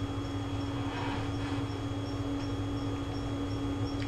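A steady electrical or appliance hum, with a faint high chirp repeating about three times a second.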